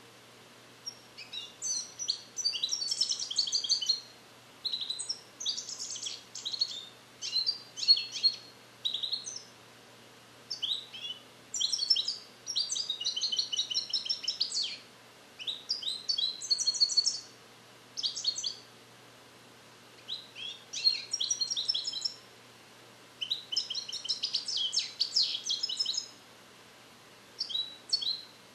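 Male European goldfinch singing in phrase after phrase of fast, high twittering chirps and trills, with pauses of about a second between phrases. He is a young bird trained in the Neapolitan 'passata' song style, repeating its passages but not yet singing them complete.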